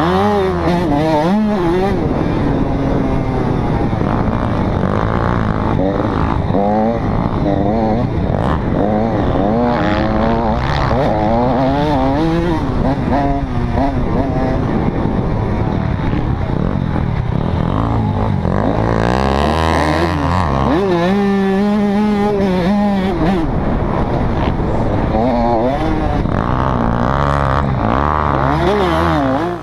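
Motocross dirt bike engine revving hard and easing off again and again, its pitch climbing and dropping as the bike accelerates and shifts. The engine sound cuts off suddenly at the end.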